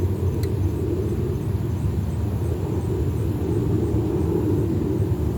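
Jet airplane flying low overhead: a steady, deep rumble from its engines.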